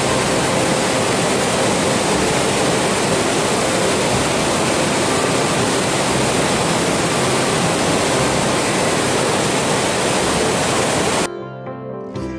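Waterfall: the steady, loud roar of falling water. It cuts off abruptly about a second before the end, leaving plucked-string music.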